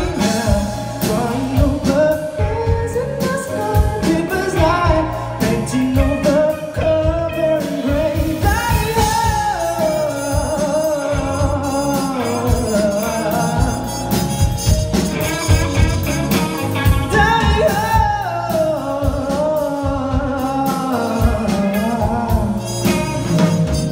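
A male singer singing a song live into a handheld microphone, backed by a band with drums, heard through the venue's sound system.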